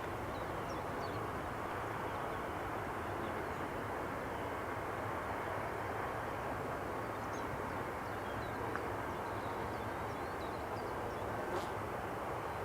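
Steady jet aircraft noise, an even rush that neither rises nor falls.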